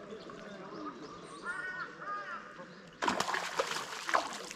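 Water splashing hard for about a second and a half, starting about three seconds in. Small birds chirp before it.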